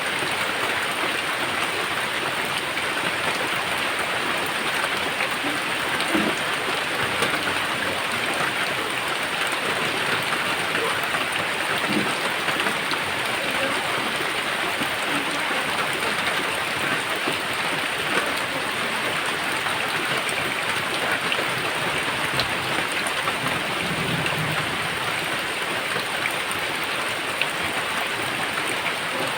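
Steady rain falling, with many individual drops ticking close by against the constant wash.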